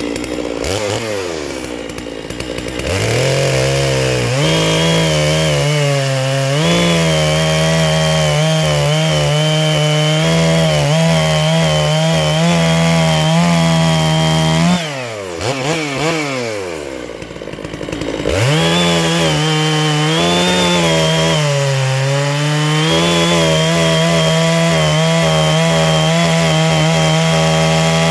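NEO-TEC NS892 92cc two-stroke chainsaw revved to full throttle and held there for about twelve seconds. It drops back to idle for a few seconds, then runs at full throttle again for about ten seconds before easing off near the end; its pitch wavers slightly while held high.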